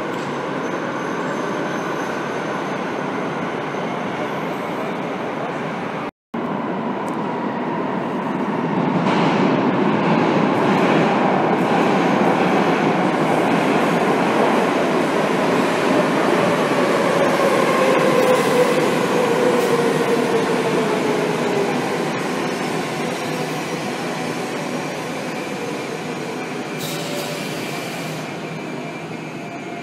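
Madrid Metro trains in an underground station: one running past the platform, then, after a brief cut about six seconds in, another pulling in with a steady rumble and a motor whine that falls in pitch as the train slows.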